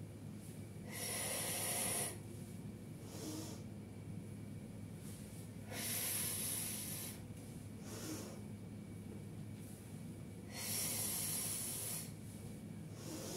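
A woman breathing hard in time with a stretching exercise: three long, loud breaths about five seconds apart, with shorter, quieter breaths between them.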